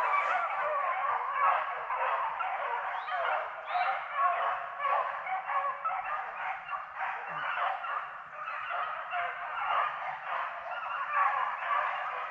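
A pack of beagles baying together in a continuous, overlapping chorus, the hounds giving tongue as they run a rabbit's track.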